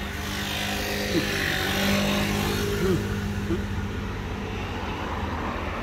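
Road traffic: a motor vehicle driving past, its noise swelling to a peak about two seconds in and then fading, over a steady low engine hum.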